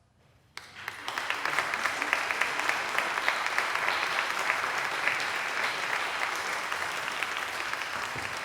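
Congregation applauding after a song, starting suddenly about half a second in and continuing steadily as dense clapping.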